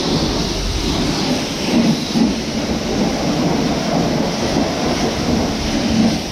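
A vehicle driving, with a loud, steady rumble of road and engine noise heard from inside the cab.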